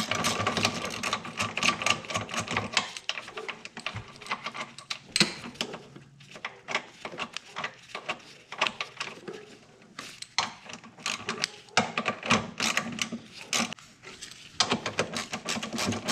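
Hand ratchet wrench clicking in quick runs as a motor mount bolt is turned in, thinning to slower, scattered clicks in the middle.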